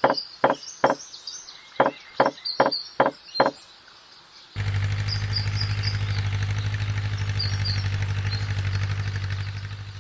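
About nine sharp knocks in quick succession, roughly two to three a second, then a small motor starts abruptly about halfway through and runs with a steady, fast-pulsing hum. Birds chirp faintly throughout.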